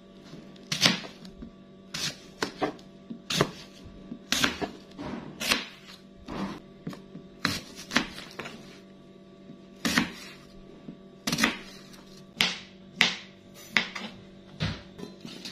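Kitchen knife cutting an apple and then papaya on a plastic cutting board: sharp, irregular knocks of the blade meeting the board, one or two a second. Soft background music with steady held tones plays underneath.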